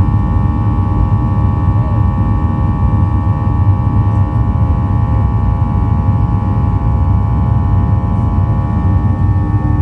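Boeing 737-800's CFM56 jet engines running steadily, heard from inside the passenger cabin: a deep rumble with a steady whine layered on top.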